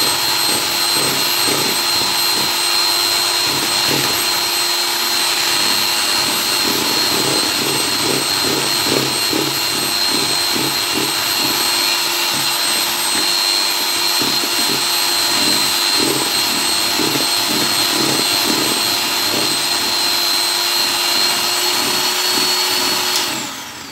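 Electric hand mixer running at a steady high whine, its beaters churning eggs and sugar in a plastic bowl as they are whipped toward a meringue; it is switched off near the end.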